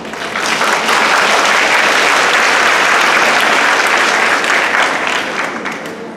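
Audience applauding, building quickly at the start and fading away near the end.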